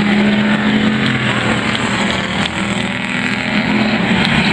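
Pure stock dirt-track race cars running past in a group at speed, their engines droning steadily over tyre and track noise, as the heat ends under the checkered flag.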